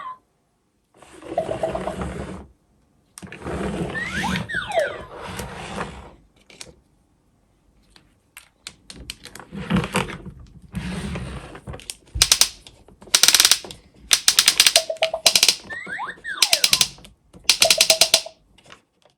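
WinFun pull-along elephant toy's electronic sound effects: short clips with quick sliding boing-like tones, separated by brief silences, then from about twelve seconds in a series of short bursts of rapid clattering clicks.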